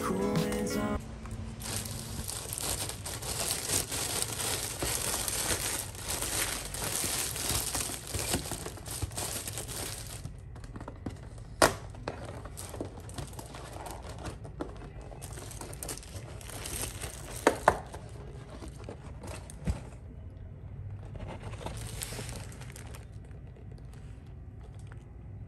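Plastic wrap and paper packaging crinkling as a pastry box is unwrapped and handled, heaviest in the first half, with a couple of sharp clicks along the way.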